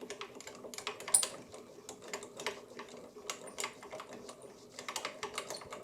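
Rapid, irregular light metallic clicks and ticks from the milling machine's table being wound by hand to run a dial gauge along the vise jaw, over a faint steady hum.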